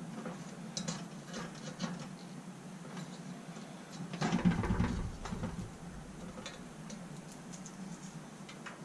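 Fingers picking and peeling a heat-softened sticker off a steel trailing arm: faint scratches and small clicks, with a louder scuffing noise about four seconds in.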